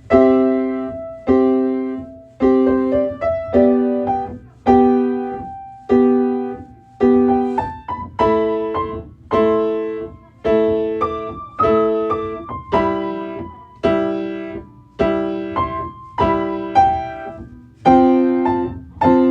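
Solo piano playing a slow, steady run of chords, one struck about every second, each ringing and fading before the next, with a few passing notes moving between them.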